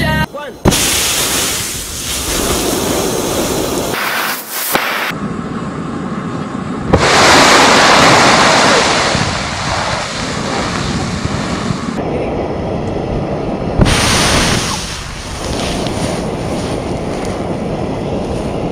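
Burning oil flaring up out of a wok after water hits the hot oil: a loud, continuous rushing roar of fire with spattering. It surges suddenly about 7 seconds in and again about 14 seconds in.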